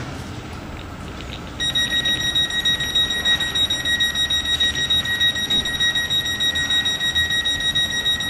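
Door-closing warning alarm on a Class 484 electric unit: a high, pulsing electronic tone that starts suddenly about a second and a half in, sounding while the passenger doors are released to close.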